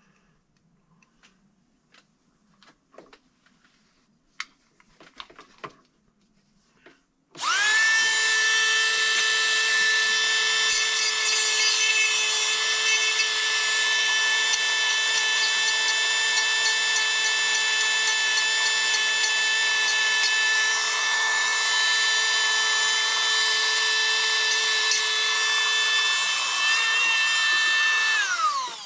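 Dremel rotary tool switched on about seven seconds in, running with a steady high-pitched whine for about twenty seconds, then switched off and winding down near the end. Before it starts, a few light clicks of handling.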